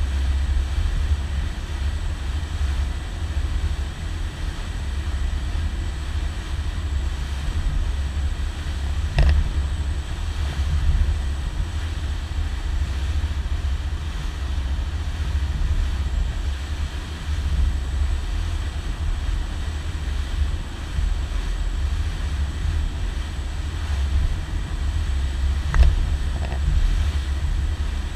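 Low, steady rumble of a boat's engine running, with two short knocks, about 9 and 26 seconds in.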